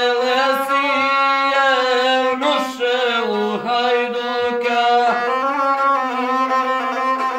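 Gusle, a carved single-string bowed folk fiddle, bowed continuously: a steady low note holds beneath a wavering, ornamented melody line, played as an interlude between sung lines of an epic song.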